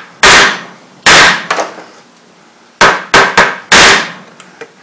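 Hammer striking an old pin used as a drift, held in pliers, to knock a stubborn, flared, never-removed pin out of an AR-15's A2 front sight base. There are six sharp metal blows: two about a second apart, then a pause, then four quick ones near the end.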